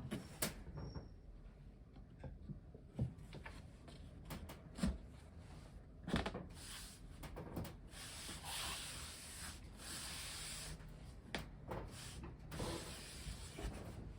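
Handling sounds at a workbench: scattered knocks and clicks with stretches of rubbing and scraping, like wood or parts being set in place and slid about.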